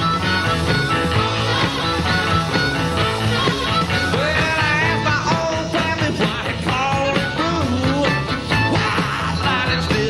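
Upbeat country-rock band playing with electric keyboard, bass and drums keeping a steady beat. A bending, wavering lead line rises over the band in the middle of the passage.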